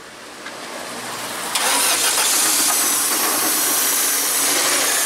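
VAZ 2110's carburettor engine cranked on the starter in a start attempt, a loud, noisy sound that begins sharply about a second and a half in and stops abruptly about three and a half seconds later. The engine is suspected of having water in its petrol.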